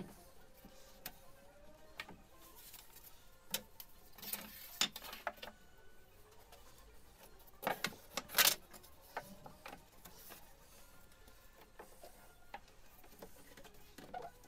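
Thin plywood strips being handled and laid against a laser engraver's aluminium frame: scattered light wooden knocks and scrapes, the loudest a small cluster about eight seconds in.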